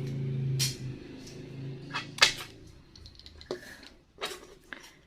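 Scattered light clicks and taps from crochet work being handled, likely while the yarn is cut, over a low steady hum that fades out in the first two seconds.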